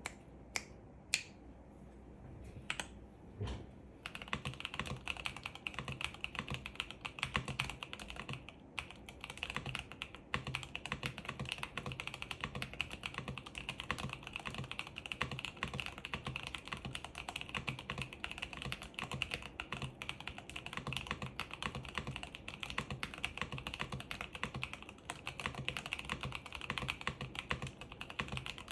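Typing on a plateless KBD67 Lite R3 mechanical keyboard with Anubis tactile switches: a few single keystrokes at first, then fast, continuous typing from about four seconds in.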